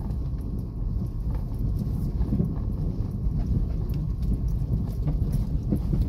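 Car driving slowly over a bumpy grass field, heard from inside the cabin: a steady low rumble with irregular knocks and rattles.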